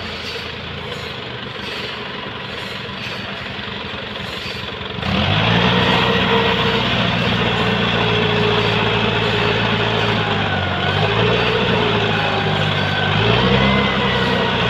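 Sawmill machinery running with a steady hum; about five seconds in it grows louder and a whine that wavers in pitch joins in.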